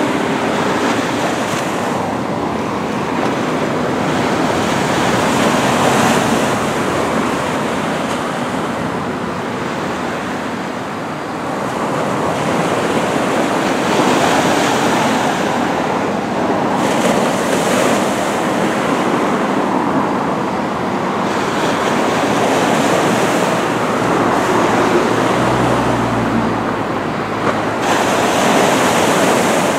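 Small surf breaking and washing on the beach, a steady rush that swells and fades every few seconds. A brief low hum joins in about 25 seconds in.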